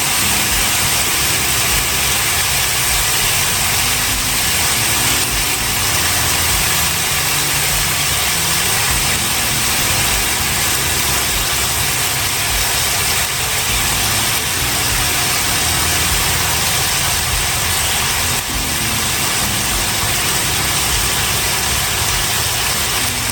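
Chicken pieces searing in avocado oil in a hot cast iron pot: a steady sizzle, with a constant mechanical hum underneath.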